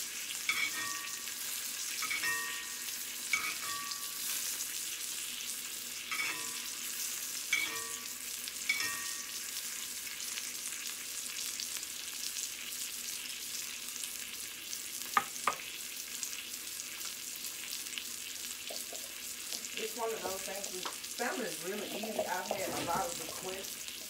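A salmon fillet sizzling steadily in hot oil and butter in a cast-iron skillet. In the first several seconds a metal utensil scrapes and clinks against the pan about once a second. There are two sharp clicks about midway and a short jumble of clattering noises near the end.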